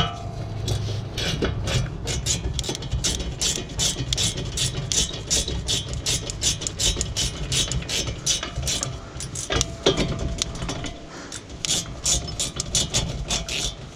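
Hand ratchet with a 7 mm Allen bit clicking in quick, uneven strokes as it turns a brake caliper bolt.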